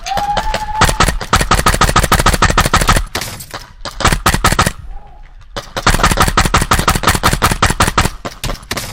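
Tokyo Marui MWS gas blowback airsoft rifle, powered by HPA through an adapter, firing rapid full-auto strings of sharp clacks as the bolt cycles. There are three bursts: a long one at the start, a short one about four seconds in, and another long one from about six seconds in.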